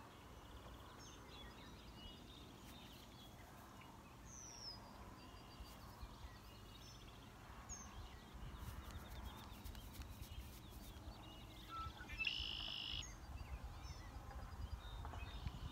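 Quiet outdoor ambience: birds calling now and then over a low wind rumble, with faint clicks and taps as the flintlock pistol is handled and reloaded.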